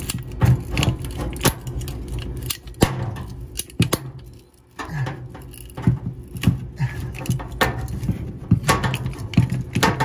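Irregular clicks, knocks and rattles of hands working a flexible water supply line and its fitting loose at an angle-stop shutoff valve, over a steady low hum.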